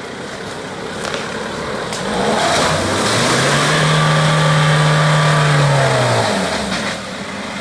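Land Rover Defender's diesel engine revving up hard as the truck ploughs through deep mud. The revs climb about two seconds in, hold high for a few seconds, then drop away near the end.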